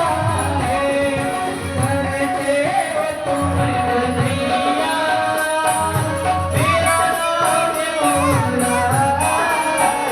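Music: a voice singing a melody over instrumental accompaniment with a steady percussion beat.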